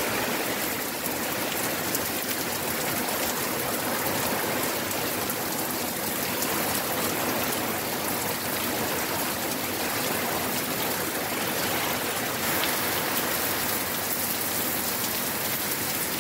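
Heavy tropical-storm rain pouring steadily, an even hiss with gentle swells.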